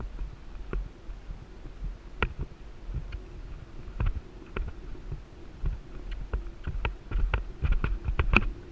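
Horse cantering on sand, heard from a rider-mounted GoPro: soft hoofbeats and clicks from the tack over a steady wind rumble on the microphone. The clicks and thuds come faster and louder in the last two seconds.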